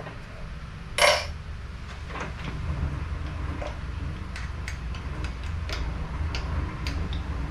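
Metal tools clinking at a drill press chuck and vise: one sharp, ringing clink about a second in, then scattered light ticks and taps, over a steady low machine hum.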